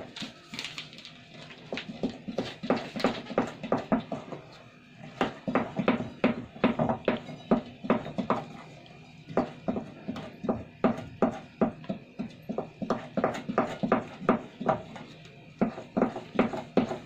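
A spoon knocking and scraping against the side of a mixing bowl while flour is stirred into cupcake batter by hand: a steady run of sharp clicks, about two to three a second, with a short pause about four seconds in.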